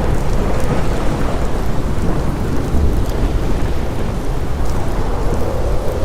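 Thunderstorm: steady rain with a low, continuous thunder rumble.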